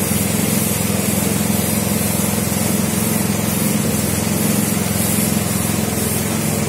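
Gravity-feed spray gun hissing in repeated bursts as primer is sprayed, over the steady hum of a running air compressor motor.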